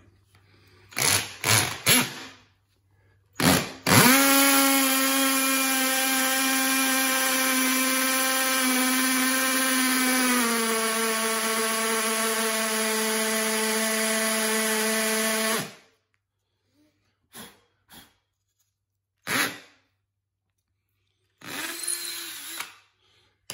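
Ryobi hammer drill with a 1/8-inch bit boring through a wooden tack strip into the concrete slab. It gives a few short bursts, then runs steadily for about twelve seconds, and its pitch drops slightly partway through the run. A few short clicks follow after it stops.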